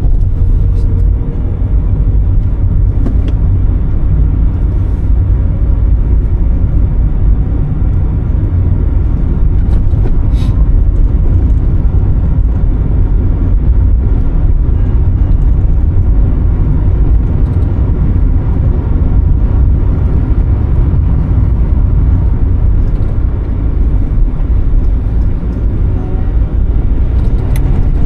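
Steady, loud low rumble of a car running or being driven.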